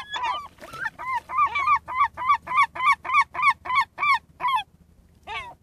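Herring gulls calling: a rapid run of about a dozen loud, evenly spaced calls, roughly three a second, after some overlapping calls at the start, then a pause and a single falling call near the end.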